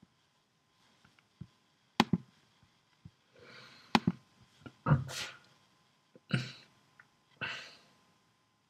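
A computer mouse double-clicked twice, sharp paired clicks about two seconds apart, with several short breathy noise bursts in between.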